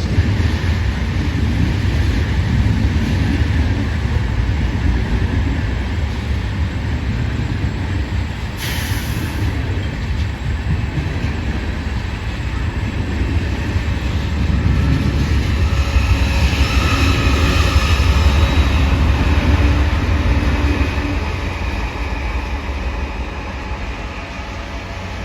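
Freight cars of a slow-moving BNSF manifest train rolling past with a steady low rumble. Faint high wheel squeal rises and fades about two-thirds of the way through.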